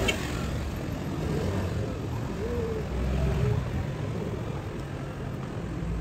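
Outdoor ambience: a steady low rumble, with faint voices of people near the middle and a brief click at the very start.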